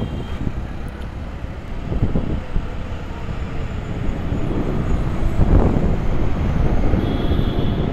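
Wind rushing over the microphone with road and traffic rumble while riding an electric scooter at speed, growing gradually louder.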